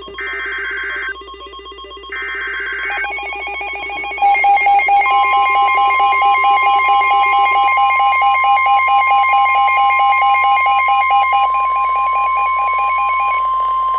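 NOAA Weather Radio emergency alert sequence: two buzzy SAME digital header bursts about a second long, then the steady 1050 Hz warning alarm tone from about five seconds in, over rapid pulsing electronic alarm beeps. It heralds a new warning broadcast.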